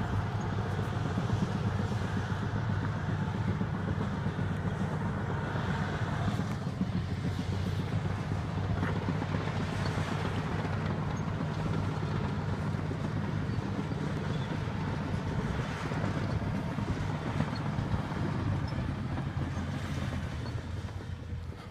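Heavy diesel engines of a Caterpillar bulldozer and a logging truck running steadily under load as the dozer pushes the truck.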